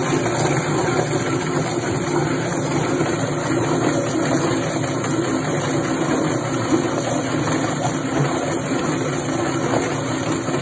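Yardbird drum chicken plucker running steadily, its electric motor spinning the bottom plate as water sprays in. A scalded Cornish cross chicken tumbles against the rubber plucking fingers, which strip its feathers.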